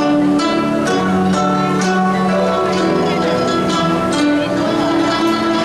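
An ensemble of guzheng (Chinese plucked zithers) playing together: plucked notes ringing out and overlapping.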